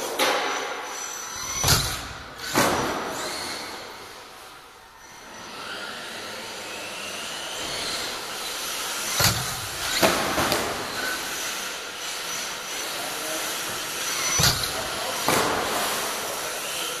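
HPI Firestorm 10T Flux radio-controlled stadium truck driving hard, its brushless electric motor whining up and down in pitch over tyre noise. Three pairs of sharp knocks, each pair about a second apart, are the loudest moments.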